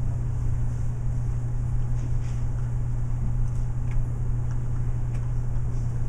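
Steady low room hum over a background hiss, with a few faint knocks.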